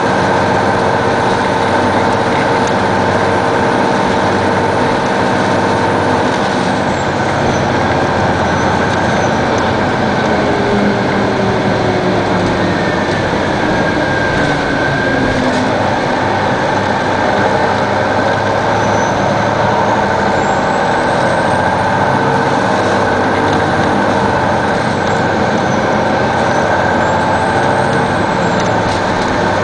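2002 Neoplan AN-460 articulated bus running, its Detroit Diesel Series 60 diesel and Allison B500R transmission making a steady drone. A whine glides down in pitch about ten seconds in, and fainter high whines rise and fall later on.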